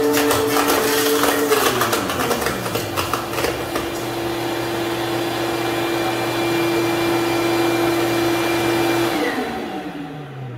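DeWalt benchtop thickness planer running with a thin glued-up hardwood blank being fed through it. There is clattering at first, and the pitch drops about a second and a half in and then holds steady. Near the end it is switched off and winds down, its pitch falling away.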